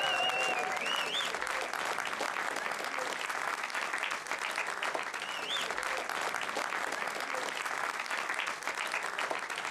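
Audience applauding in a cinema: dense, steady clapping with a few short, high rising whistles near the start and again about halfway through.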